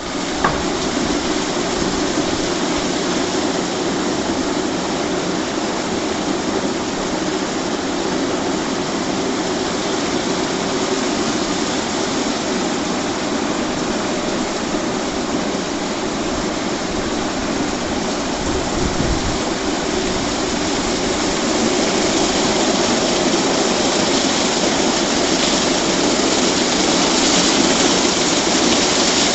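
WashTec SoftCare 2 Pro car wash brushes spinning against the car with water spraying: a steady, dense rushing and swishing that kicks in suddenly and swells a little near the end.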